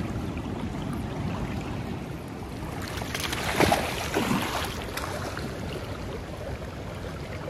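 Steady rush of river current, with a hooked Atlantic salmon thrashing and splashing at the surface close by for about a second and a half about halfway through.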